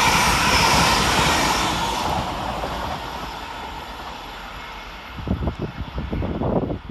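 Two coupled ScotRail Class 385 electric multiple units passing at speed, their wheel and rail noise fading away over about four seconds as the train recedes. Near the end, wind buffets the microphone in low, uneven gusts.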